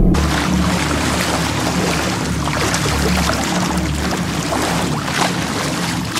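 Choppy sea water splashing and sloshing against a floating shark cage, with a steady low rumble underneath.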